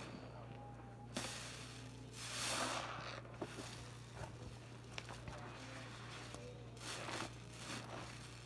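A soapy, foam-covered sponge squeezed and pressed in a sink of sudsy water: wet squishes and crackling suds in several short noisy bursts, the longest and loudest about two to three seconds in. A low steady hum runs underneath.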